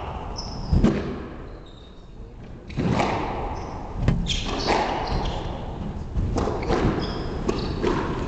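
Squash rally: the ball smacking off the rackets and the court walls in a run of sharp impacts, the hardest about a second in, with short squeaks of shoes on the wooden floor between them.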